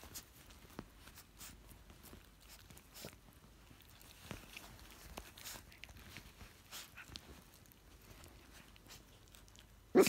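Faint scattered clicks and rustling on a blanket, then one short, loud bark from a Yorkshire Terrier near the end.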